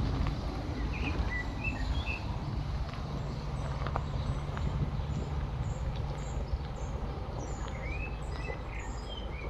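Small birds chirping in short high calls, in a few bursts, over a steady low outdoor rumble with an engine-like hum.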